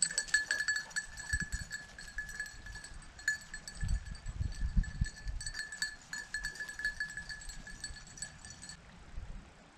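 A hunting dog's collar bell jingling without a break as the dog moves about, then stopping abruptly near the end. Low rumbling comes in around the middle.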